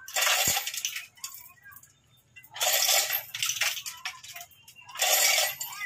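Chain hoist's hand chain rattling and clinking in three short bursts, a couple of seconds apart, as it is pulled to hoist an engine, with a single knock about half a second in.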